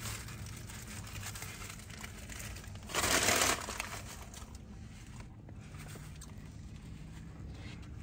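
Aluminium foil sandwich wrapper and plastic bag crinkling and rustling as they are handled, with one loud, brief crumple about three seconds in.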